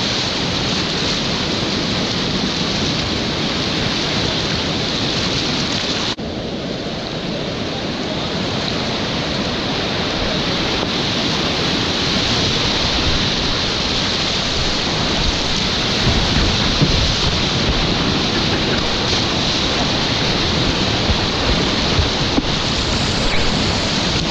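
Whitewater rapids rushing and churning, heard at the water's surface from a kayak. The sound shifts abruptly about six seconds in, and the second half has a deeper rumble with louder splashes.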